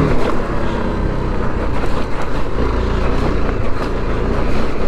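BMW G310GS single-cylinder engine running steadily while the bike rides a rough, muddy gravel track, under a steady rush of wind and tyre noise, with a few light knocks.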